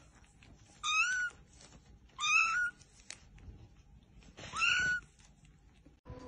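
A young kitten mewing three times, short high-pitched mews about a second and a half apart.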